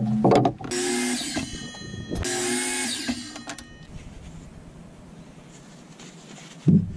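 Electric miter saw running in two short runs of about a second each, cutting boards, after a few wooden knocks as a board is handled on the saw table. Near the end a board knocks down onto the workbench.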